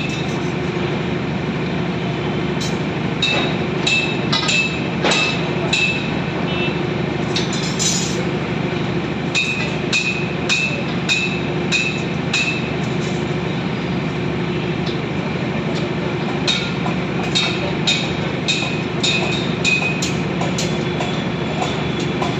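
A machine running with a steady drone, with runs of sharp metallic clinks that ring briefly, about one to two a second, coming in bursts a few seconds long.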